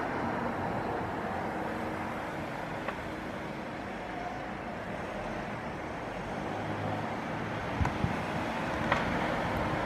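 Steady outdoor background noise, a rumble and hiss, with a few light knocks near the end.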